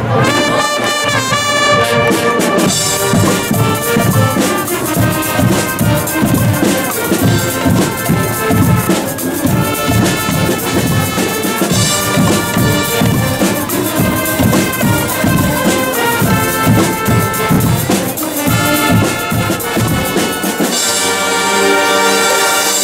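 Guggenmusik band playing: massed trumpets and trombones over a steady drum beat. Near the end the drums stop and the brass holds a long chord.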